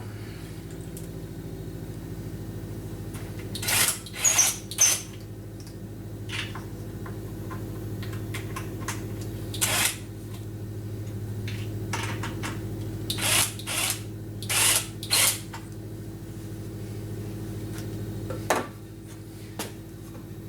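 Short knocks and clatter of tools and lumber being handled, coming in small bunches over a steady low motor-like hum that drops off near the end.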